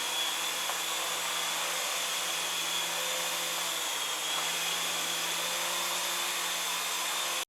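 Syma S107 dual-rotor RC helicopter flying: the steady whir of its small electric motors and rotors, with a high whine that wavers slightly in pitch.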